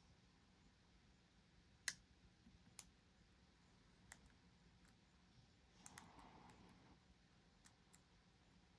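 Faint, sparse metallic clicks from a pick and tension wrench working the pins of a dimple lock, the sharpest about two seconds in, with a short soft rustle of handling around six seconds in.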